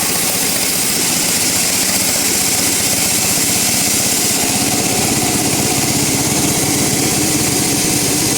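Sawmill woodworking machinery running steadily: a loud, even hiss over a motor hum.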